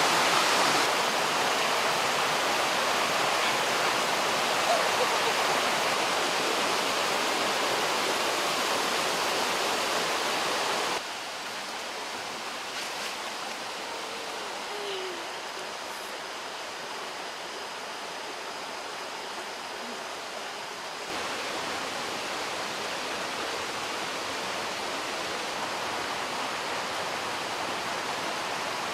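Steady rush of water from a small waterfall and a shallow rocky stream, an even hiss. It drops suddenly to a quieter flow a little over a third of the way in and steps back up again about two thirds of the way through.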